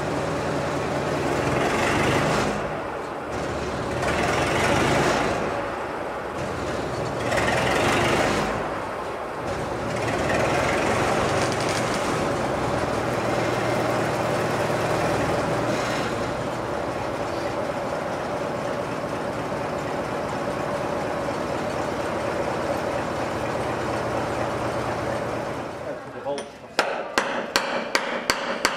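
An engine runs steadily as a narrow-gauge locomotive is moved slowly along the workshop track, with louder swells of running noise in the first ten seconds. Near the end, about eight quick hammer blows on the steel saddle tank, about three a second.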